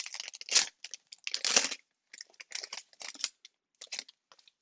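Foil trading-card pack wrapper being torn open and crinkled by hand: irregular crackling, with two louder tears in the first two seconds and smaller crinkles after.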